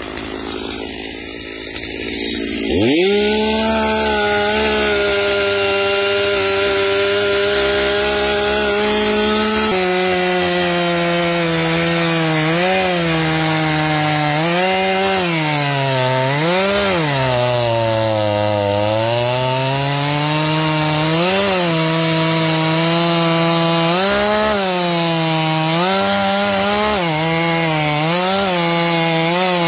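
Stihl MS250 two-stroke chainsaw throttled up sharply about three seconds in, then cutting into a wooden stump. Its pitch dips as the chain bogs in the wood and climbs back again and again, with one long sag midway through.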